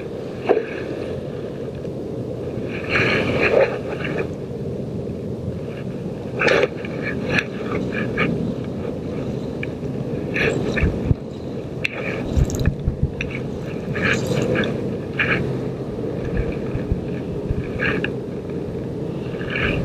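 Wind rumbling on a body-worn camera's microphone, with scraping and handling knocks. Brief high-pitched sounds break in several times.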